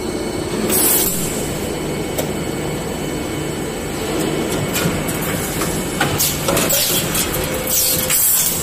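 Glue-bottle extrusion blow molding machine running with a steady mechanical hum. Bursts of air hiss come about a second in and again near the end, with scattered clicks and clunks from the moving molds and the pneumatic deflashing unit.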